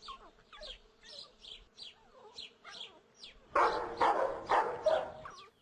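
A dog making high, faint yips and whimpers, then a run of loud barks starting about three and a half seconds in.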